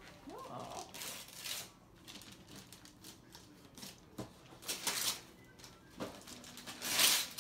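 Gift wrapping paper being torn and crinkled as a present is unwrapped, in a few short rustling bursts, the loudest near the end.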